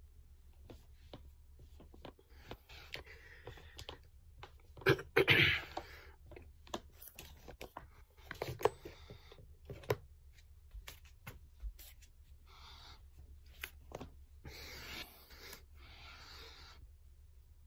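A person breathing hard during push-ups: a string of forceful exhales, the loudest a sharp burst about five seconds in, with scattered light clicks and taps between them.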